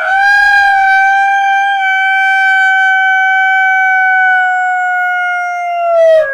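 A rooster's crow slowed to a quarter of its speed, stretched into one long drawn-out note rich in overtones that holds a steady pitch and slides down near the end.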